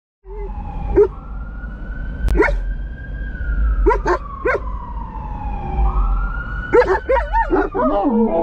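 Fire truck siren wailing in slow rising and falling sweeps, heard from inside a car, with a few short dog barks over it. Near the end, German Shepherds in the back seat start howling and yipping along with the siren.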